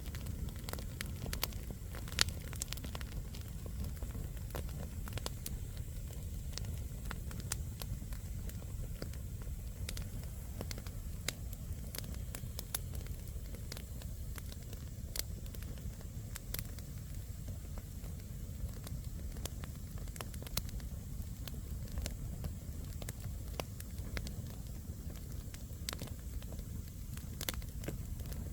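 Wood campfire burning: a steady low rumble of flames with frequent sharp crackles and pops from the burning logs.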